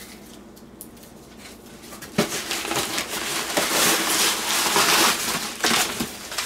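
Crumpled packing paper crinkling and rustling as it is grabbed and pulled out of a cardboard box. It starts suddenly about two seconds in and stays loud after a quieter start.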